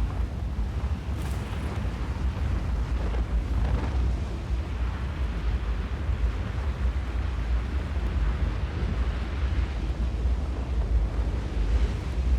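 Strong wind buffeting the microphone: a steady, heavy low rumble with a faint rushing hiss above it.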